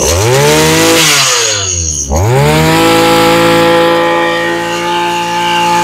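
Makita EM227 brush cutter's small petrol engine revved hard twice. It climbs quickly, falls back about two seconds in, then climbs again and holds steady at full throttle, running smoothly, which the seller calls just right.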